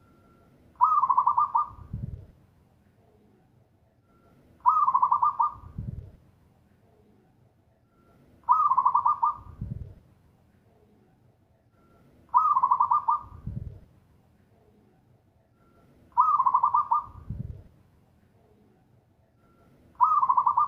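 Zebra dove (perkutut) singing its cooing song over and over, six phrases about four seconds apart. Each phrase is a short soft note, then a quick run of rolling, trilled coos about a second long, and a brief low note at the end.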